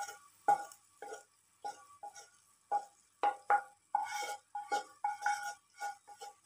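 Wooden spatula scraping and tapping the inside of a frying pan as sugary fried sago pearls are pushed out onto a plate. It comes as an uneven string of short scrapes and taps, each with a brief metallic ring from the pan.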